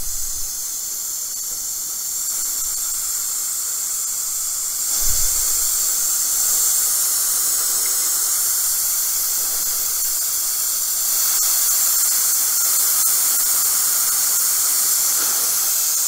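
Compressed nitrogen hissing out through a manifold gauge set's service hose as the pressure-test charge is vented from an air conditioner. A steady high hiss that grows louder about five seconds in and again around eleven seconds.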